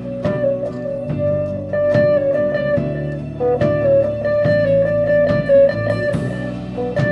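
Live band music: electric guitar, bass guitar and drum kit playing together, with held guitar notes over repeated drum and cymbal hits.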